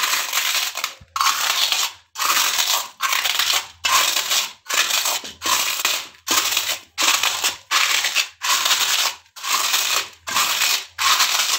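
Fried, puffed gond (edible gum) being crushed under the back of a steel bowl on a steel plate: repeated crunching, grinding strokes, a little more than one a second. The crisp, well-fried puffs are breaking down to powder.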